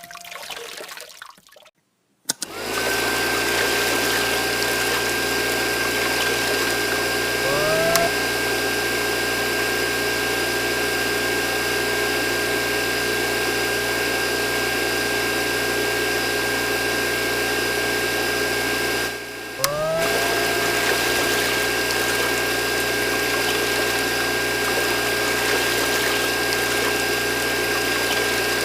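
Small electric water pump starting up and running steadily with a constant high motor whine over water noise. About 19 seconds in it cuts out for a moment and starts again with a rising whine.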